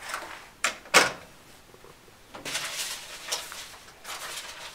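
Rotary phone handset hung up in its cradle with a sharp plastic clack about a second in, then scraping and knocking of things being handled and shifted at a desk.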